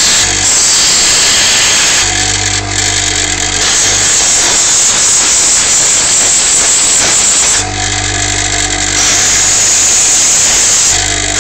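Power tool grinding a steel hacksaw blade into a lock pick: a continuous harsh grinding hiss, with the motor's hum coming up more plainly for a second or so about 2 s in, about 8 s in and near the end.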